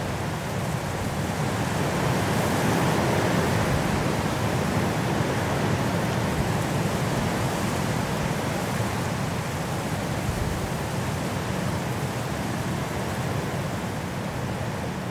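Strong wind rushing through trees in a mountain snowstorm, a steady roar that swells into a gust about two seconds in and slowly eases off.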